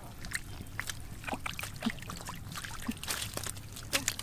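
Small irregular splashes and wet slaps in shallow muddy water, as stranded catfish flop and hands and bare feet work in the mud.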